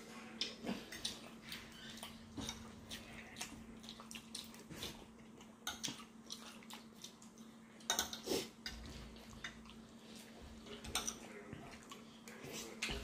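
Faint, irregular wet chewing and mouth smacks of people eating, with occasional light clinks of utensils on dishes.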